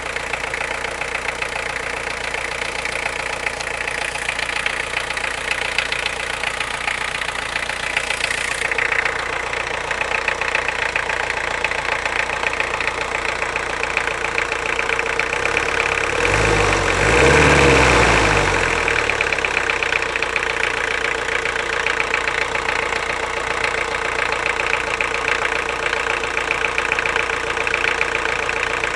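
Car engine idling with a rapid knock coming from inside the engine. It is revved up briefly once a little past halfway and drops back to idle, still knocking.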